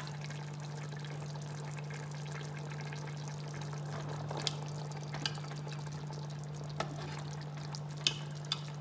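A pot of mutton and potato shorba simmering with a soft bubbling, under a steady low hum. A spoon clicks against the pot a few times, spaced out, as the potatoes are checked for softness.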